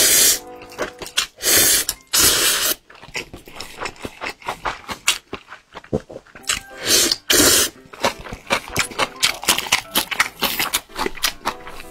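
Close-up eating sounds: several loud, long slurps of instant noodles, about a second in, near two seconds and again near seven seconds, between many short wet chewing and lip-smacking clicks. Background music plays underneath.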